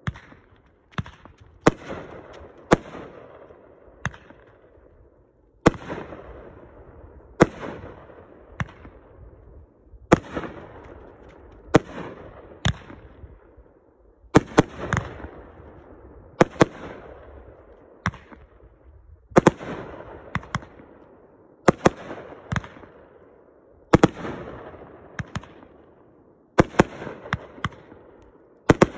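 500-gram consumer firework cakes firing shot after shot: sharp bangs every second or two, some in quick pairs, each followed by a fading tail.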